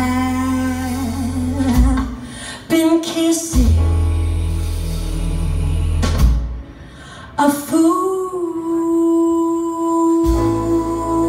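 A woman sings slow, drawn-out notes into a microphone over a small live band, with an upright bass playing low notes underneath. Past the middle she holds one long, steady note.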